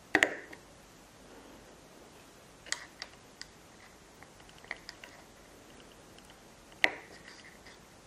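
Sharp plastic clicks and taps as a small wired cable connector is handled and pressed into a port on a Pixhawk flight controller: a loud click just after the start, a few lighter ones around three seconds in, and another loud click near the end.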